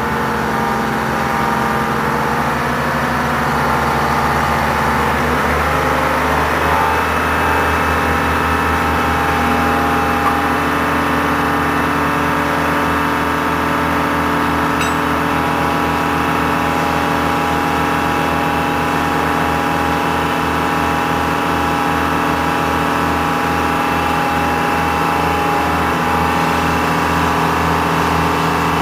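Rough-terrain crane's diesel engine running steadily, its pitch shifting slightly about six seconds in.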